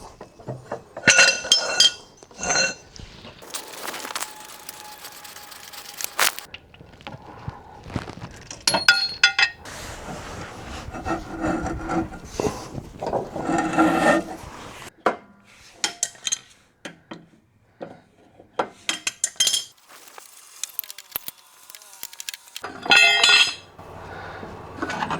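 Steel mower blades, wrenches and hardware clinking and clanging in short bursts of ringing metallic strikes. There is a burst of hiss about four seconds in.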